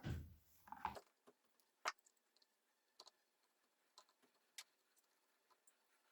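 A short rustle and knock of handling, then a few scattered light clicks and taps, parts of an orbital sander being handled while it is put back together.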